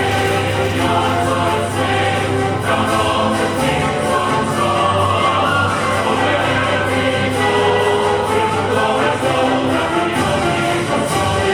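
A choir singing with instrumental accompaniment over a steady bass line.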